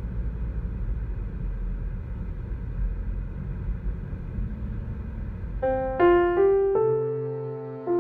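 Steady low rumble of a moving car's road noise, then solo piano music starts about five and a half seconds in, a few single notes at a time, and the rumble fades out under it.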